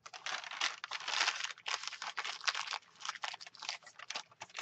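Lined notebook paper being crumpled and crinkled by hand: a dense, crisp crackling that goes on throughout.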